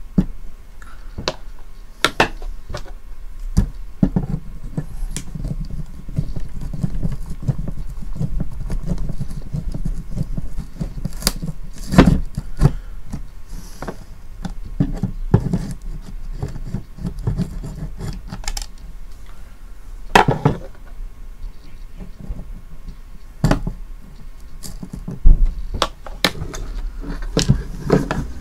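Close handling noise of a small plastic digital TV antenna being repaired by hand: irregular clicks, knocks and rattles of its plastic casing, wires and a small metal tool, over a low rumble of hands moving near the microphone. A few sharper knocks stand out, about 12, 20 and 25 seconds in.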